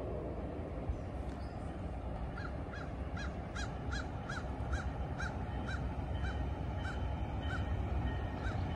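A bird calls a run of about fourteen short, harsh notes, starting a couple of seconds in and gradually slowing, over a steady low outdoor rumble.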